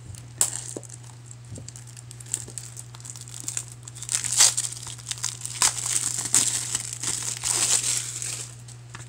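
Plastic shrink wrap being torn and peeled off a Blu-ray case: a few small clicks at first, then dense crinkling for about five seconds that stops shortly before the end.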